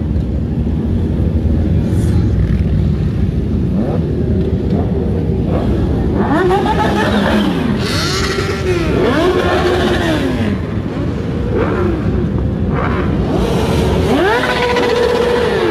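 A stream of motorcycles riding past with engines running. From about six seconds in, sport bikes rev up and down over the low rumble of the other engines, in repeated rising-and-falling whines.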